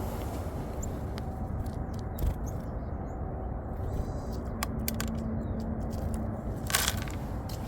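Outdoor field sound at a bird-feeding spot: a steady low rumble, like wind on the microphone, with scattered small clicks, a short cluster of them near the end, and a few faint, very short high chirps from small birds.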